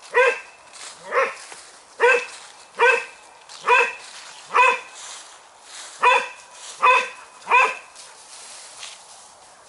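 A spaniel barking over and over: nine even barks, about one a second, with a short pause about halfway. The barking stops about eight seconds in.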